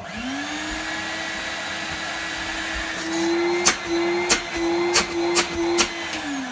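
1993 Numatic NV200 vacuum cleaner switched on, its motor spinning up quickly to a steady whine, then switched off near the end and winding down. Several sharp clicks sound over its second half. The motor has a bit of bearing noise, which the owner judges nothing too bad.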